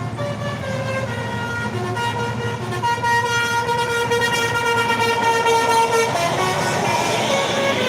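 Indonesian bus 'telolet basuri' musical horn playing a tune: a run of short stepped notes, then one long held note of about three seconds that breaks off about six seconds in. A steady low engine rumble runs underneath.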